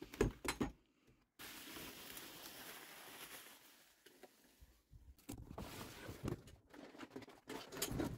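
Handling noises as a cordless lawnmower is lifted out of its cardboard box: a few knocks at first, a couple of seconds of rustling and scraping, then a run of clicks and bumps of plastic against cardboard.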